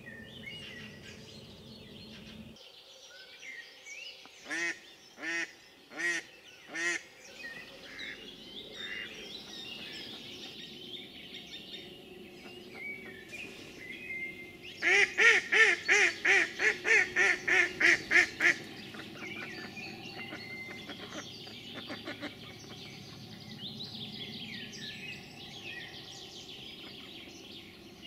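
A decoy hen duck quacking, calling to bring in a drake. First come four spaced quacks, then about a dozen rapid, loud quacks in a row about halfway through. Small songbirds chirp throughout.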